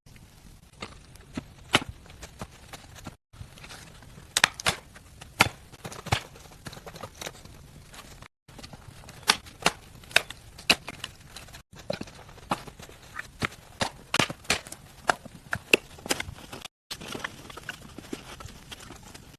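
Irregular sharp knocks and cracks, sometimes several a second, in short stretches broken off by abrupt cuts.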